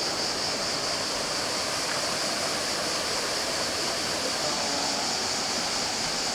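Mountain stream water rushing steadily over rocks and small cascades into pools, a constant even hiss.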